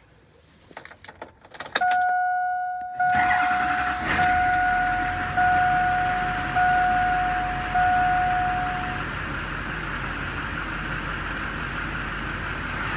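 GM Duramax LB7 6.6 L V8 turbo-diesel starting about three seconds in, then idling steadily and staying running, the sign that the fuel filter is full and the system primed. It follows keys jangling, and a dashboard warning chime beeps about once a second for the first several seconds.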